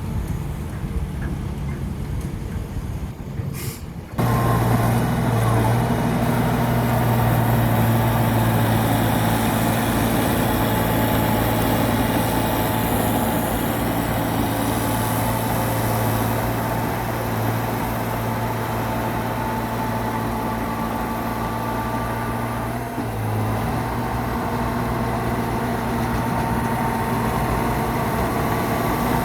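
Heavy diesel machinery engine running steadily under load with a deep hum. About four seconds in it abruptly becomes much louder and stays loud.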